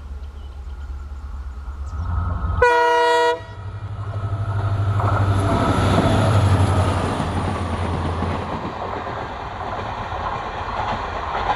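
Indian Railways passenger train passing. Its locomotive horn gives one short blast about two and a half seconds in, then the engine rumble and wheel noise swell, peak about six seconds in and ease off.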